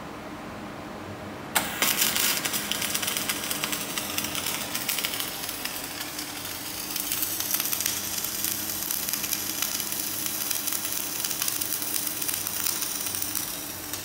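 Flux-cored wire welding arc struck suddenly about a second and a half in, then a steady crackling sizzle as the bead is run, stopping near the end. Before the arc strikes there is only a low machine hum.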